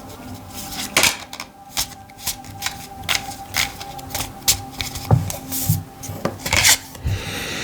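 Tarot cards being shuffled and handled: an irregular run of quick dry snaps and rubs. A faint steady background tone runs underneath, and a breath comes near the end.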